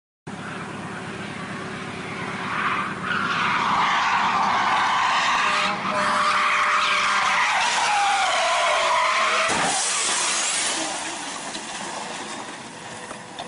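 A car drifting at speed, its engine running and its tyres squealing loudly in long wavering screeches that rise and fall. About ten seconds in a short crash cuts into the squeal as the car slams into a pickup truck, and the noise dies down to a lower hiss.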